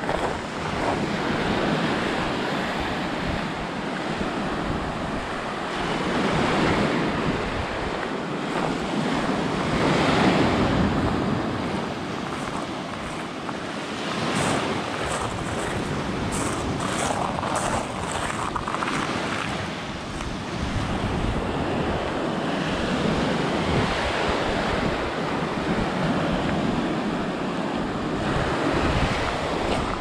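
Small waves breaking and washing up a shell beach, the surf swelling and easing every few seconds, with wind buffeting the microphone.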